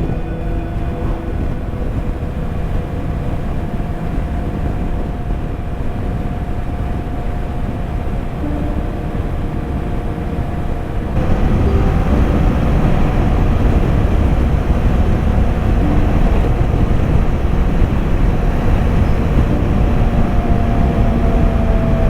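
Harley-Davidson motorcycle being ridden at speed: the engine running steadily under heavy wind rush, growing louder about halfway through.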